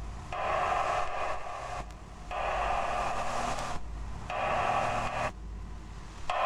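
A harsh electronic buzz in repeated bursts of about a second and a half, four times, roughly every two seconds.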